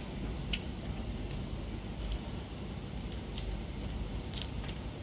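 Scattered light clicks and crackles of a cooked prawn's shell being peeled apart by hand, over a low steady rumble.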